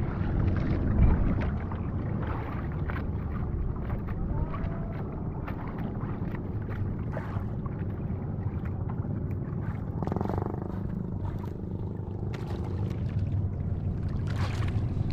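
Steady low rumble of a small fishing boat at sea, with wind noise on the microphone.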